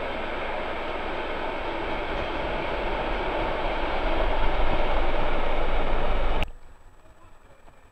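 Freight train of covered goods wagons rolling through the station: a steady rushing noise of wheels on rails that grows louder, then cuts off suddenly about six and a half seconds in.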